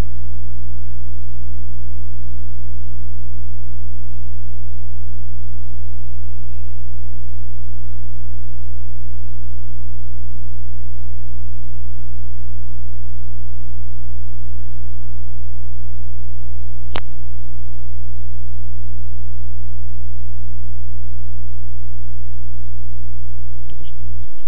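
Loud, steady electrical mains hum with a low buzz of evenly spaced overtones, and a single sharp click about seventeen seconds in.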